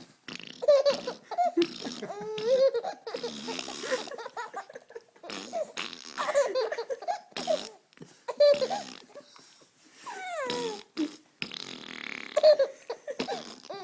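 A 4-month-old baby laughing in repeated short bursts of squealing giggles, between fart noises.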